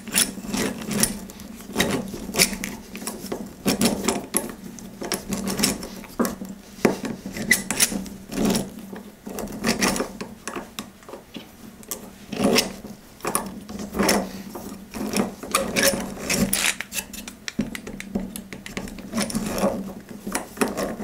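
Eggbeater hand drill being cranked steadily, its toothed gears clattering and a 1/8-inch twist bit rasping its way into softwood, rising and falling in uneven pulses with the turns of the crank.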